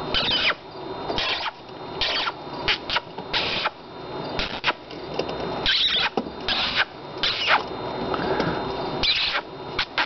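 Baby prairie dogs giving short, high squeaking calls, about a dozen scattered through several seconds, in answer to noises made at them.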